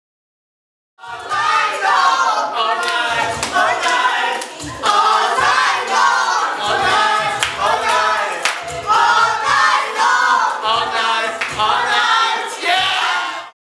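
A small group of people singing together a cappella with hand clapping, starting about a second in and cutting off abruptly at the end.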